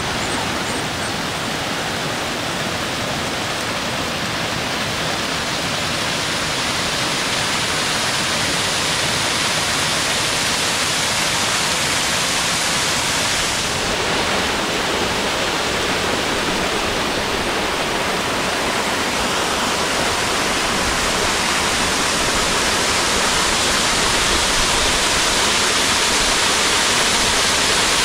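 Steady rushing of a waterfall cascading down a rock face, growing slightly louder over time, with a small shift in its tone about halfway through.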